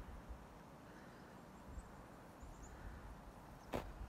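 Quiet outdoor ambience with a low rumble and a few faint, high bird chirps near the middle, then a single sharp click near the end.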